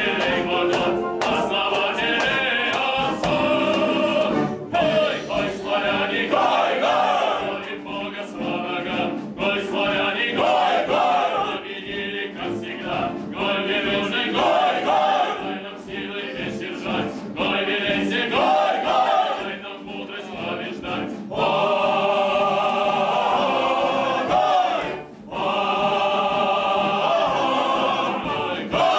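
Choir singing a number from a stage musical, with instrumental accompaniment; the music drops away briefly about four seconds before the end.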